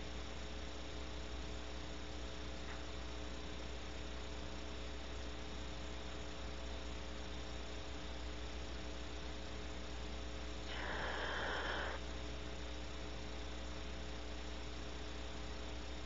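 Steady electrical mains hum with a faint hiss; about eleven seconds in, a barn owl gives a single breathy hiss lasting about a second.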